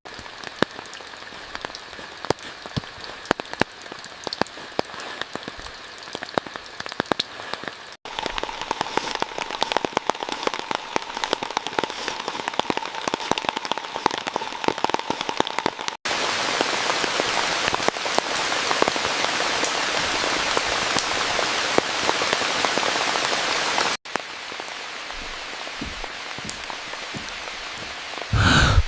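Heavy rain falling, with dense individual drops pattering on a surface, in several short stretches that change abruptly every few seconds; the third stretch is the loudest and densest. A brief loud thump comes near the end.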